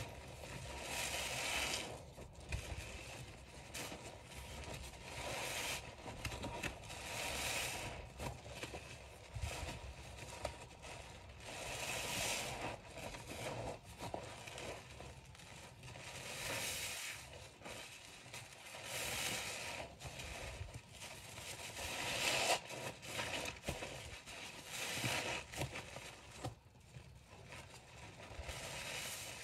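Soapy bath sponges squeezed and wrung by rubber-gloved hands in a basin of thick suds: wet squeezing of water and foam, one squeeze about every two to three seconds.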